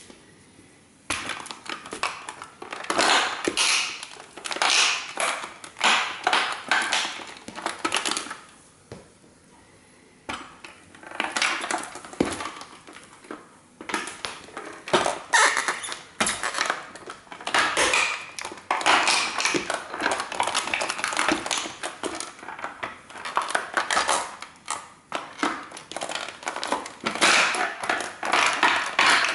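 A 1:18 scale model toy car being crushed underfoot by sneakers, its plastic and metal body cracking and crunching in repeated bursts of sharp crackles and clicks, with short pauses between the stomps.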